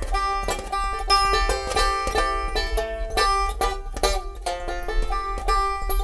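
Resonator banjo picked solo in a quick, steady run of notes: an instrumental break between the verses of a song.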